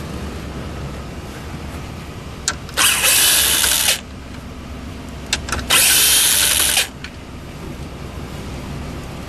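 Power driver with a 7 mm socket running twice in bursts of about a second each, backing out two dash trim bolts, with small clicks as the socket is set on each bolt.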